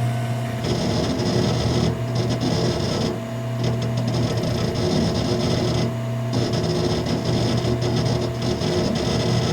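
A steady machine-like noise: a low hum with a rasping, grinding texture over it, that changes briefly twice.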